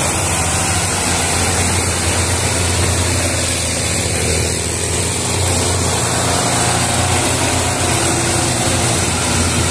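Belarus tractor diesel engines running steadily under heavy load, hauling a loaded sugarcane trolley.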